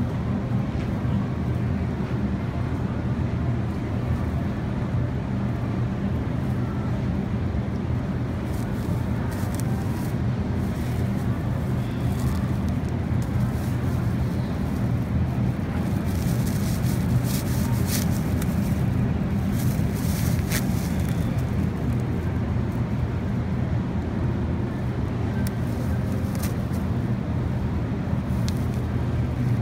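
Steady low hum of supermarket background noise, with a few brief crackles of a thin plastic produce bag being handled and tied around the middle.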